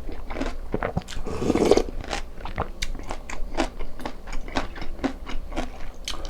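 A person eating close to the microphone: rapid, irregular chewing and biting with wet mouth clicks, and a louder, fuller stretch about a second and a half in.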